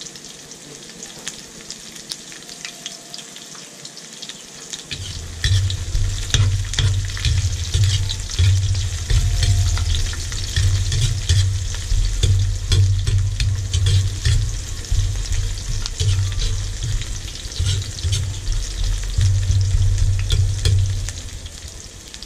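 Sliced onions frying in oil in a large aluminium wok, sizzling, with a metal spatula scraping and clicking against the pan as they are stirred. From about five seconds in until near the end, a loud low rumble runs underneath.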